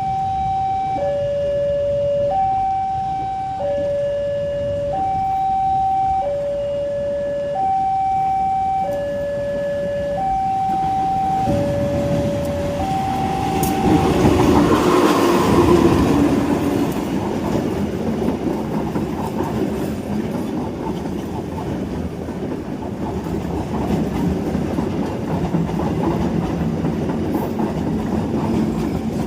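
Railway level-crossing warning alarm sounding two alternating notes, high then low, about once a second. About halfway through a train reaches the crossing and its noise swamps the alarm. The passing cars then keep up a steady rumble with wheels clattering over the rail joints.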